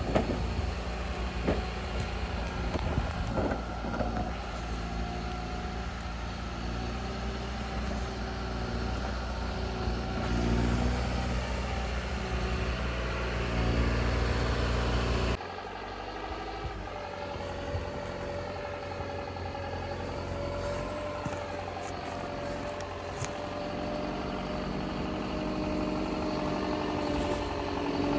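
Heavy vehicle engine running steadily, as on a trail-grooming machine. About halfway through the sound changes abruptly, and a steady whine then rides over the engine.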